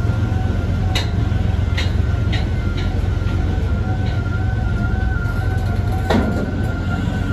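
Freight train's container flat wagons rolling past close by: a steady low rumble of wheels on rail, with several sharp clicks in the first four seconds and a louder sharp metallic sound about six seconds in.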